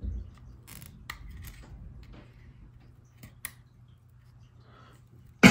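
Pry tool scraping and clicking against the seam of an iPhone 2G's casing, with scattered small clicks, then one loud sharp snap near the end as a piece of the casing comes free.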